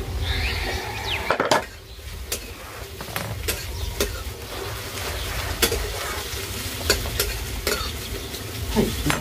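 Metal spatula stirring potatoes frying in a metal kadhai, with about ten sharp, irregular clinks of the spatula against the pan over a steady frying sound.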